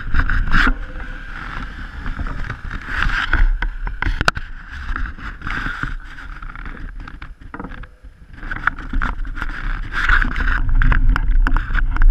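Mountain bike with knobbly tyres rolling along a tarmac road, heard from a camera mounted on the bike: a steady rushing noise with many small rattling clicks. It dies down briefly about eight seconds in.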